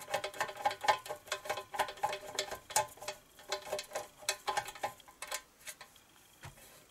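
Ratchet clicking rapidly and unevenly as a carburettor mounting screw is backed out of a 1970 Briggs & Stratton 2 hp engine. The clicks die away about five and a half seconds in.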